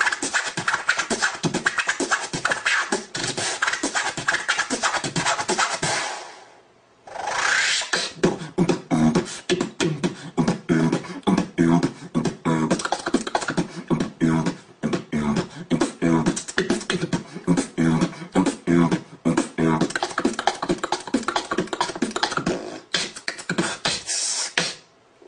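Human beatboxing: fast percussive mouth clicks, kicks and hi-hat sounds. It stops briefly about six seconds in, then resumes with a pulsing hummed bass line under the beats.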